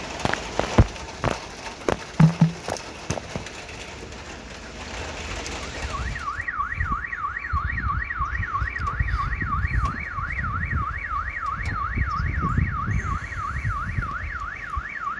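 Rain hissing with scattered drips knocking. About six seconds in, a car alarm starts, warbling rapidly up and down, about three sweeps a second, and keeps going.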